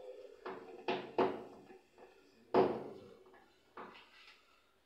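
Screwdriver turning the screw of a bathtub overflow cover plate: several short creaks and clicks as the screw is driven, the loudest about two and a half seconds in.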